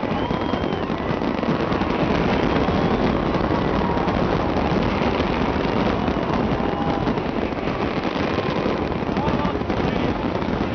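Large fireworks display going off without pause, a dense rapid popping and crackling of many shells at once, mixed with the voices of a big crowd.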